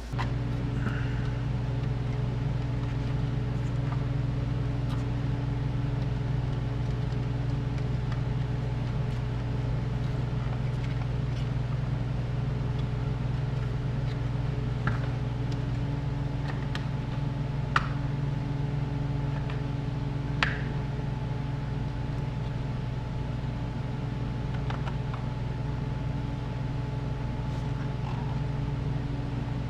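A steady machine hum, like a small electric motor or fan, that switches on suddenly and runs on evenly. A few light clicks sound over it.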